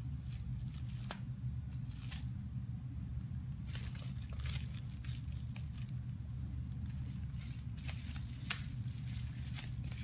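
Plastic bubble wrap crinkling and rustling in scattered bursts as small hands pick at its tape and pull at the wrap, over a steady low background hum.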